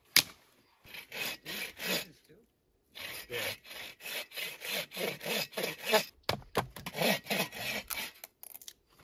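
Bow saw cutting through a dead wooden branch in quick back-and-forth strokes, with a sharp knock just as it starts and two short pauses in the strokes.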